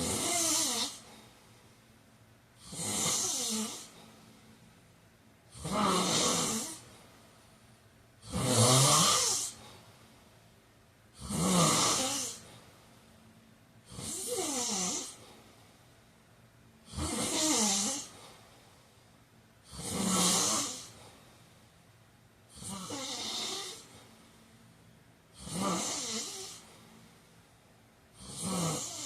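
A man snoring in a steady rhythm, one snore about every three seconds, each lasting about a second.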